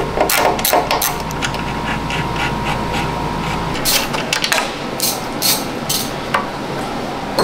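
Socket ratchet clicking as a bolt on a motorcycle's bodywork is loosened, followed by a few sharper metal clicks as the bolt is worked out by hand.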